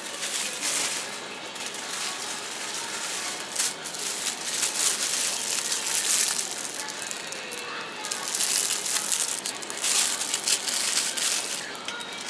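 Plastic packaging crinkling and rustling in irregular bursts as a bagged bunch of mandarin oranges and other packaged groceries are handled close by.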